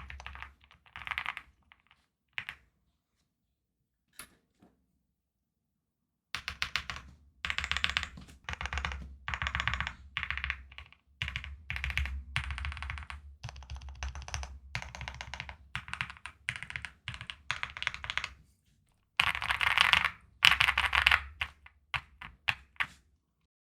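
Typing on a custom mechanical keyboard with lubed, filmed Gateron Black Ink V2 linear switches in an Owlab Starlight Spring case with an FR4 plate and PBT keycaps. Quick runs of keystrokes stop for a few seconds near the start, then resume as a long steady run. A louder flurry near the end tapers off.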